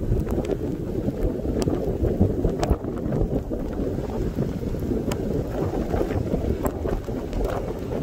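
Blizzard wind buffeting the microphone: a steady, dense low rumble, with a few faint clicks.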